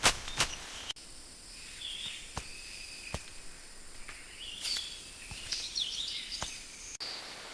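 Jungle ambience: steady high-pitched insect buzzing with scattered bird chirps and a few sharp clicks. The first half second holds a quick run of clicks, and the ambience changes abruptly about a second in.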